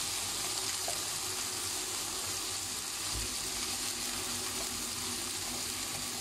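Boiled chickpeas sizzling steadily in hot oil in a pan, just added for frying.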